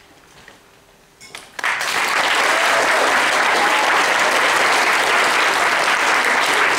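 Audience applause that breaks out about a second and a half in and then holds dense and steady. Before it there is a short quiet stretch with a few faint knocks.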